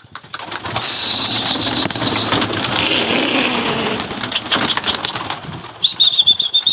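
A flock of domestic pigeons taking off together, a loud rush of flapping wings lasting about five seconds. Near the end a rapid, high chirping trill starts.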